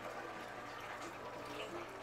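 Water in aquarium tanks bubbling and trickling softly, over a steady low hum.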